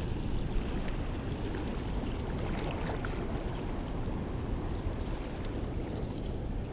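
Steady low rumble of wind on the microphone over the rush of flowing river water.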